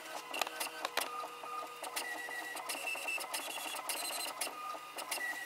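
HP Envy Photo 7830 inkjet printer printing its calibration page, with rapid clicks and short, stop-start motor whines as the page feeds out.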